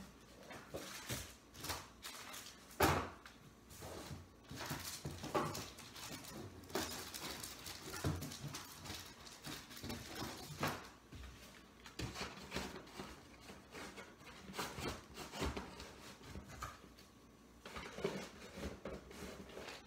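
Goods being packed by hand into a cardboard box: irregular knocks, thuds and rustling of packages against the cardboard, with one sharper knock about three seconds in.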